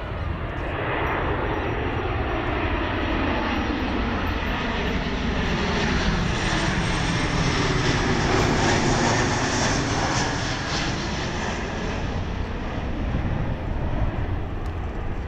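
Boeing 737-800 airliner on landing approach, gear down, passing low overhead: its CFM56 jet engine noise swells to a peak a little past halfway, sliding down in pitch as it goes by, then fades as it moves away.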